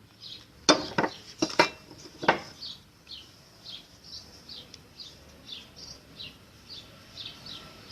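Metal parts of a washing machine's drum bearing assembly clinking and knocking as they are handled, about five sharp clinks in the first couple of seconds. Then a small bird chirps faintly and repeatedly in the background, two to three high chirps a second.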